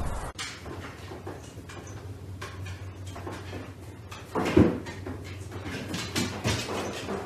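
Scattered light knocks and clicks of a large dog moving at the top of a wooden staircase while carrying a pillow in its mouth. One louder thump comes about four and a half seconds in.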